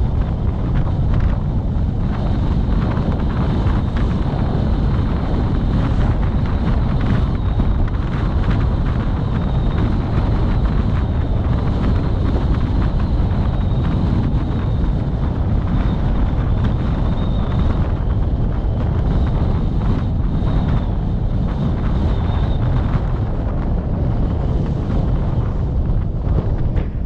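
Steady wind buffeting on the microphone over the rumble of a moving road vehicle, with a faint thin high whine through the middle.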